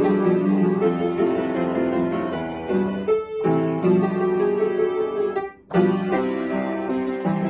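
Upright piano being played, a continuous run of notes with a short dip about three seconds in and a brief pause just before six seconds.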